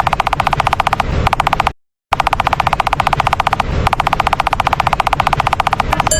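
A rapid, pitched rattling sound effect, more than ten even pulses a second, cut off by a brief silence about two seconds in and then resuming.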